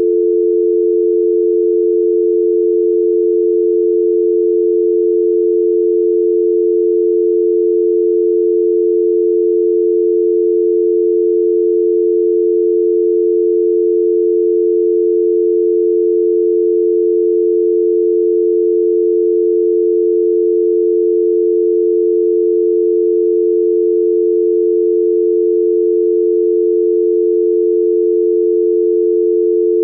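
Canadian telephone dial tone: two steady tones of 350 and 440 Hz sounded together without a break, the signal that the line is ready to receive dialling.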